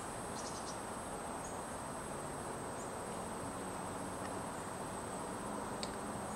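Quiet outdoor background: a steady low hiss with a thin, unbroken high-pitched tone over it and a couple of faint clicks.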